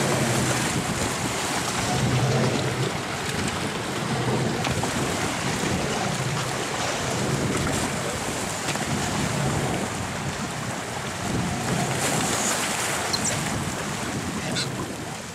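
Open-sea water noise: wind buffeting the microphone over choppy waves that rush and splash, with a low rumble underneath.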